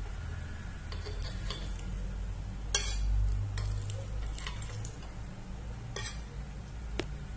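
Steel spoon scraping and clicking against a metal appe pan as cooked appe are lifted out of its cups, a handful of separate taps with the sharpest about three seconds in, over a low steady rumble.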